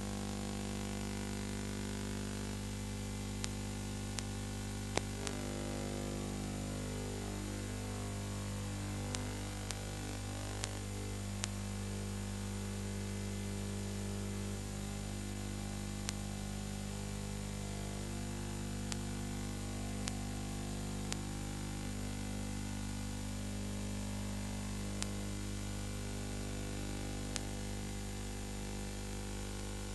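Steady electrical hum with hiss and a dozen or so scattered sharp clicks, the background noise of a silent film transfer with no sound of its own.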